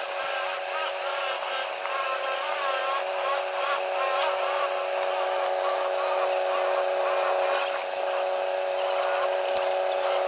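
A steady mechanical whine holding one pitch, with indistinct voices over it in the first few seconds.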